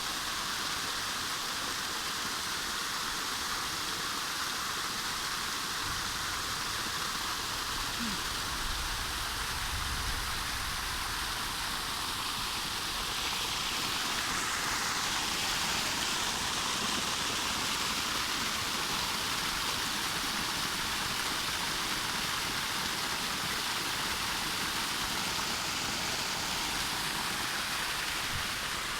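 Steady heavy rain falling, an even hiss of rain on surfaces.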